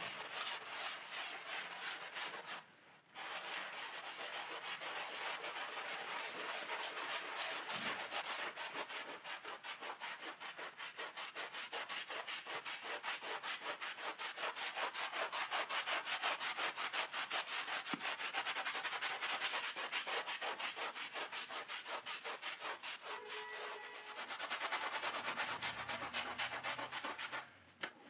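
A stiff hand brush scrubbing the soapy pile of a small rug in rapid back-and-forth strokes: a dense, steady scratchy rubbing, with a brief pause just before three seconds in and another near the end.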